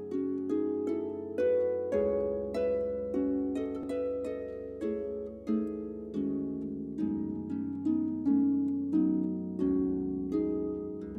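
Harp playing a slow run of plucked broken chords, about two notes a second, each note ringing on over held low bass notes.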